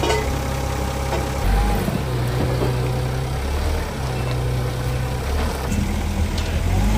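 Nissan forklift's engine running, its low note stepping up and down a few times.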